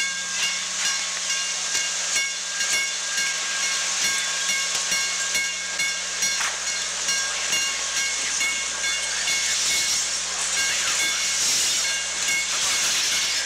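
A steady hiss with frequent irregular clicks and crackles, over a constant low hum and a few faint steady high tones.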